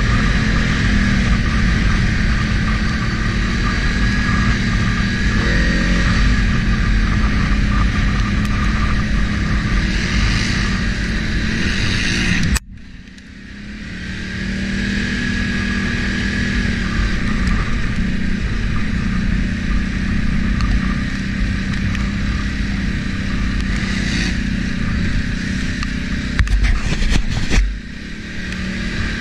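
An ATV engine runs steadily while riding, with a steady hiss over it. The sound drops away abruptly about halfway through, builds back up over a couple of seconds, and drops again just before the end.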